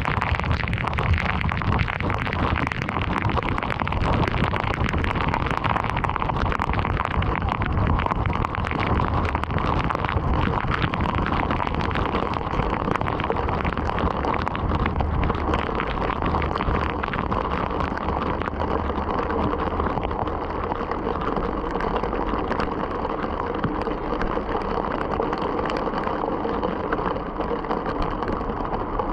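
Heavy rain hitting a moving car, with many sharp drop impacts over steady road and tyre noise.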